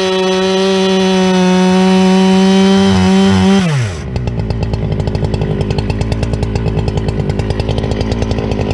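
Husqvarna 395 two-stroke chainsaw running steadily at full throttle through a cut, then the throttle is released about three and a half seconds in: the revs fall away and the saw settles into a fast, even idle.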